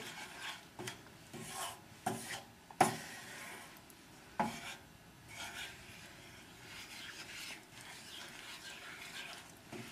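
Wooden spatula stirring and scraping thick, hot dark roux across the bottom of a heavy-bottomed stainless steel sauté pan, with a few short knocks of the wood against the pan, the sharpest about three and four and a half seconds in. The roux is being stirred off the heat so that it cools and stops darkening.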